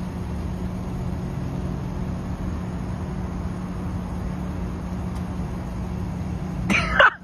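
A steady low hum with a rushing noise, like an engine or machine running, and a brief loud voice-like cry near the end.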